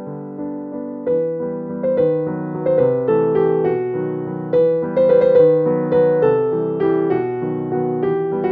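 Background piano music: a gentle melody of struck notes over lower chords, the notes coming more often from about a second in.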